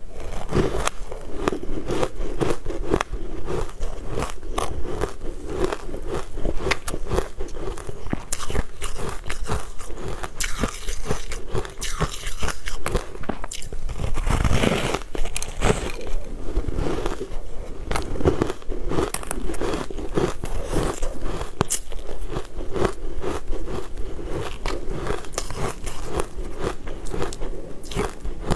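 Close-miked crunching and chewing of a chunk of refrozen ice: a dense, irregular run of crisp crunches and crackles as it is bitten and chewed.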